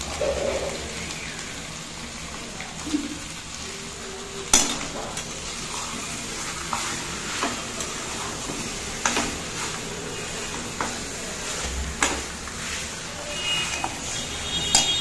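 Spiced beef and potato chunks sizzling in oil in a nonstick pan as they are dry-fried (kosha) before water goes in. A metal spatula stirs them and scrapes and clicks against the pan every few seconds, loudest about four and a half seconds in.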